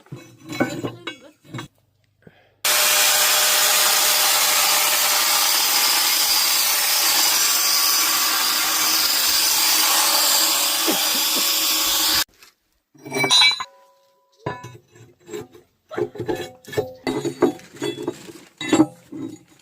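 Grinder working the steel teeth of a JCB loader bucket: a steady, harsh grinding noise that starts suddenly about two and a half seconds in and cuts off suddenly some ten seconds later.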